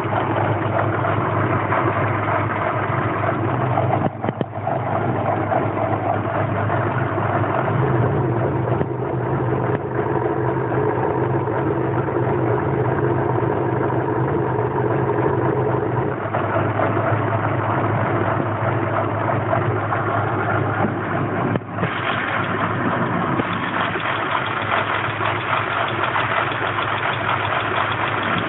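Land Rover Freelander's 1.8 K-series petrol engine idling, with two brief drops in level, about four seconds in and about three-quarters of the way through. The fuel pump is failing, which leaves the engine idling roughly.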